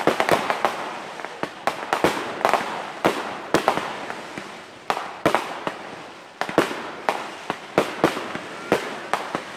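Fireworks display: aerial shells bursting in a rapid, irregular run of sharp bangs, each trailing off, with crackling between them.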